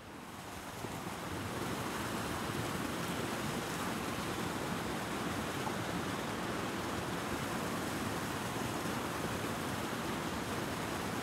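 Fountain water jets splashing steadily into a stone basin, fading in over the first second or so.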